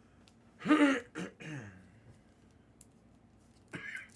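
A man clearing his throat: a loud, falling throaty burst about a second in, followed quickly by two shorter ones, then a softer one near the end. The man is coming down with a sore throat.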